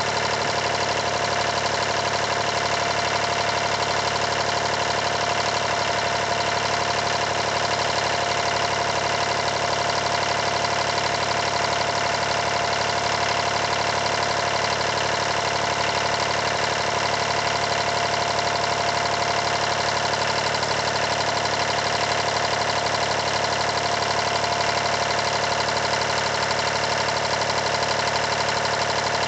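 Yanmar 336D diesel engine running steadily, with no change in speed.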